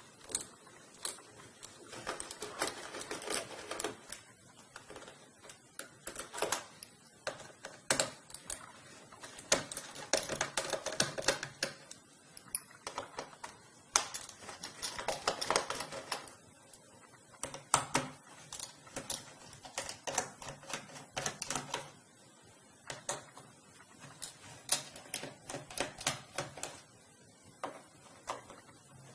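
Small screwdriver loosening the screws that hold a laptop keyboard, with irregular metal-on-plastic clicks and rasping in several bursts as each screw is turned out.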